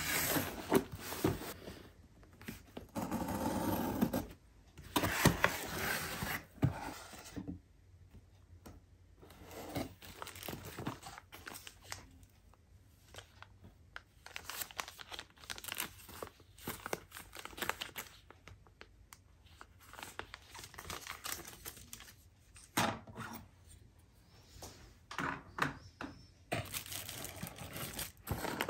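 A cardboard parcel being opened by hand: scissors snip and packing tape tears in the first few seconds, then plastic bags and bubble wrap crinkle and rustle in irregular bursts as the contents are lifted out and handled.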